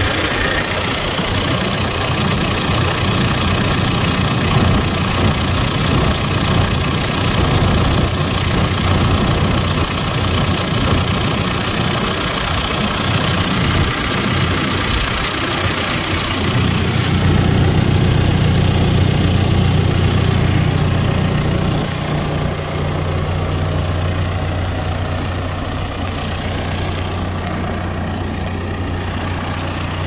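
Diesel engine of a 2014 John Deere 410K backhoe idling steadily, heard close up from the open engine compartment. The hum grows a little louder and steadier about halfway through, then eases slightly near the end.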